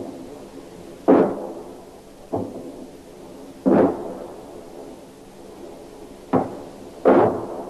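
Battlefield gunfire: five heavy bangs at uneven intervals, each with a short echoing tail.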